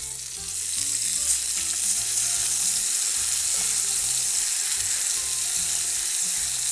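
Sauce vegetables, orange pieces and cane sugar sizzling in a hot saucepan while being stirred with a spoon, the stage where they caramelise. The sizzle swells over the first second and then holds steady.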